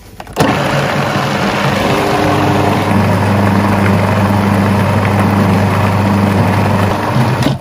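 Food processor motor running, blending a thick avocado, banana, date and cocoa pudding mixture. It starts about half a second in, settles into a steady hum after about two seconds, and cuts off just before the end.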